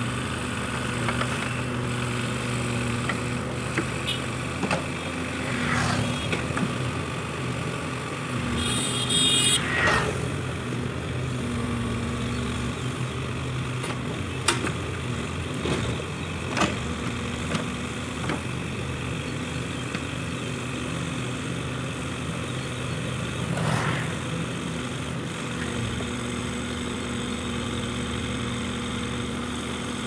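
JCB 3DX backhoe loader's diesel engine running steadily while the backhoe arm digs and swings, the engine note shifting now and then as the hydraulics take load. A few short sharp knocks come through, around halfway and again a couple of seconds later.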